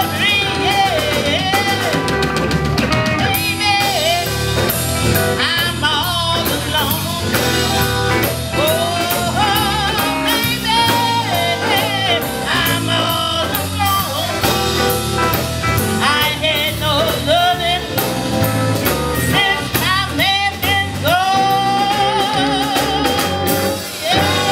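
Live blues band: a woman singing into a microphone over electric bass and drums. She holds a long, wavering note about 20 seconds in.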